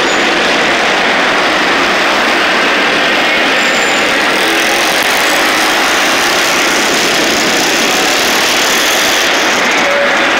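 A pack of small-engine racing karts running at speed around an indoor track, many engines blending into one loud, steady drone that echoes through the hall.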